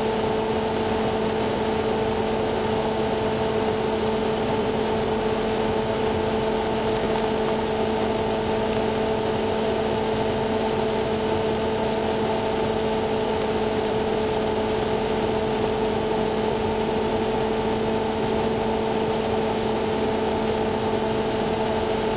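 Vehicle engine idling with a steady, even drone and a faint high electrical whine.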